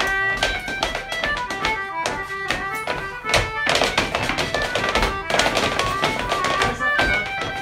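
A squeezebox playing a brisk dance tune, with the rapper sword dancers' feet tapping and stepping in time. A stretch of rougher clatter rises over the tune around the middle.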